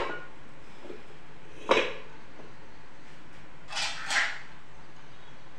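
Kitchen utensils knocking against metal cooking pots: a sharp clink at the start and another about two seconds in, then two softer scraping clatters close together near four seconds.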